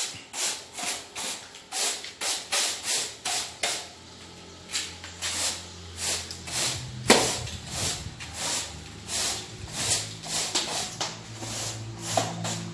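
Broom sweeping dust off a floor in quick, brushing strokes, about two a second, with a short pause about four seconds in.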